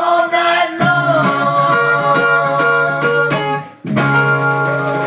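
Live skiffle band's acoustic guitars playing the closing bars of a song: a held chord with rapid strums, a short stop, then one last chord struck and left ringing.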